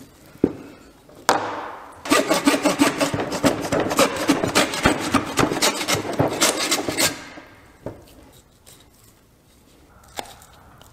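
Hand meat saw with a metal frame cutting through deer bone in a whitetail carcass. A couple of knocks come first, then rapid back-and-forth strokes with a ringing rasp, which stop about seven seconds in.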